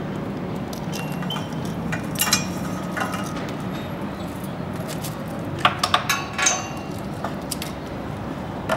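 A metal security chain and padlock clinking and rattling as they are handled around a motorcycle's front wheel, in scattered short clinks, with clusters a couple of seconds in, in the middle, and near the end.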